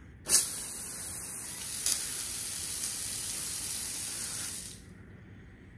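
Garden-hose water spraying hard out of the open end of a copper pipe assembly. The valve opens with a sudden gush, a steady hissing spray follows, and it cuts off suddenly about four and a half seconds later.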